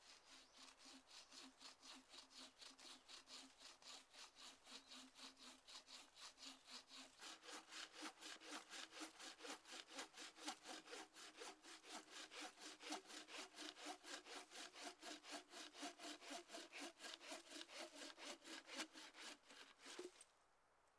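Handmade buck saw cutting through a log in fast, even back-and-forth strokes, the blade humming a note that steps up in pitch about a third of the way through. The sawing stops abruptly near the end.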